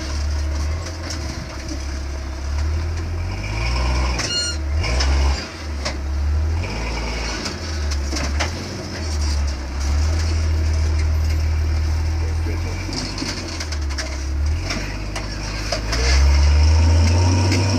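Off-road Jeep's engine running at low revs as it crawls over rock, the revs rising and falling in swells. A few sharp knocks and scrapes of rock against the underside come through, mostly about four to five seconds in.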